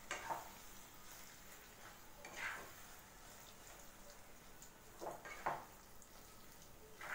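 Spatula stirring mashed potato and cauliflower into frying masala in a nonstick pan. There is a faint steady sizzle, with a few short louder scrapes spread through.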